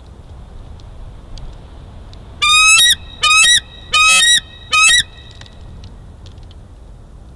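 Bald eagle calling: four loud bursts of rapid, high-pitched chittering notes, each note falling in pitch, the bursts about half a second long and coming in quick succession.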